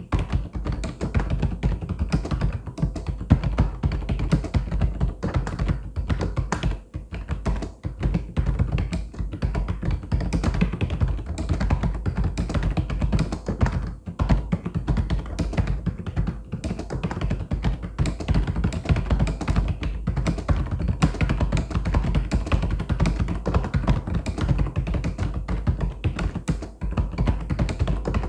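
Mechanical keyboard typing: a continuous, fast stream of key clicks and clacks with no real breaks.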